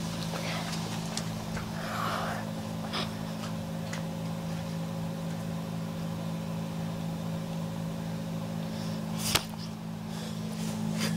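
A steady low machine hum with a faint higher tone over it, and one sharp click a little after nine seconds in.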